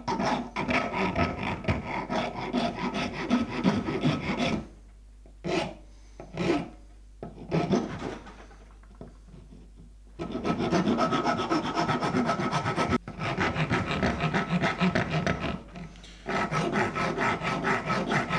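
Plastic dog-bone blade being shaped by hand with rapid back-and-forth scraping strokes, wearing a cutting edge onto its side. The strokes run in long spells, stop for a few seconds apart from a few short strokes about five seconds in, resume about ten seconds in, and break briefly near the end.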